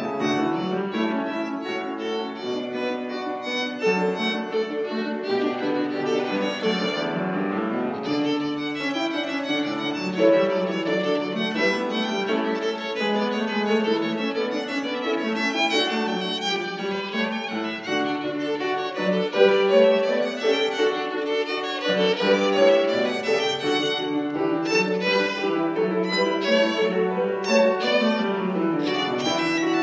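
Solo violin, bowed, playing a continuous passage of notes without a break.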